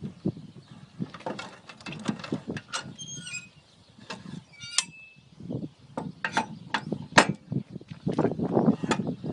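Steel bar being bent on a scroll-bending machine: irregular metal clanks, knocks and scraping, with short bursts of ringing metal about three and five seconds in.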